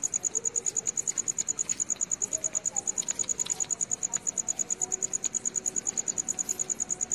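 A cricket chirring steadily: one high-pitched trill pulsing rapidly and evenly without a break.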